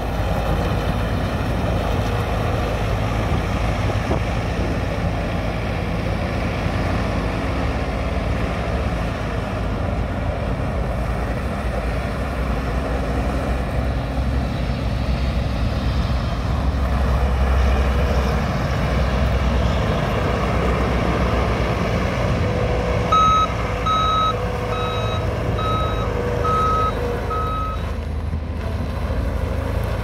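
John Deere 318G skid steer's diesel engine running steadily as the machine drives and turns, the low engine note briefly heavier about halfway through. About three quarters of the way in, its reverse alarm beeps six times, a little slower than once a second.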